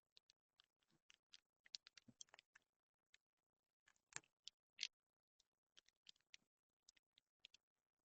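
Faint, irregular clicks and light knocks of small metal parts and hand tools being handled during engine work, the loudest few a little before and just under five seconds in.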